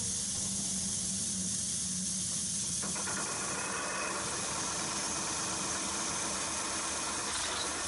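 Mercedes-Benz truck diesel engine running on a test bench at its first start, heard as a steady hiss with a low hum underneath. About three seconds in, more mid-range sound joins in.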